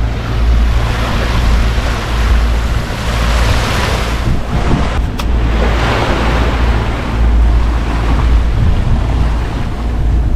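Wind buffeting the microphone over the rush of sea water along a sailing yacht's hull, swelling and easing.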